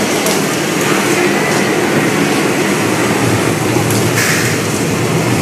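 Catastrophe Canyon special effects: a loud, steady rumble while gas flame jets burn, with a short burst of hissing about four seconds in.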